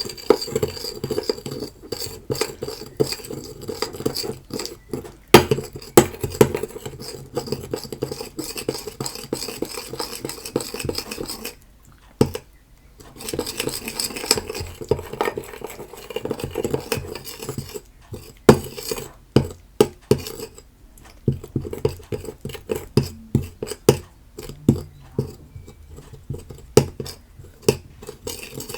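A spoon stirring and scraping around a bowl, clinking against its sides as it mixes PVA glue, bicarbonate soda and slime activator into slime. The clinking runs on in quick irregular strokes and pauses briefly about twelve seconds in.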